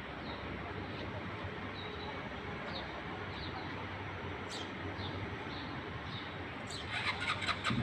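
Small birds chirping in short repeated calls over a steady outdoor background hum, with a quick run of clicks near the end.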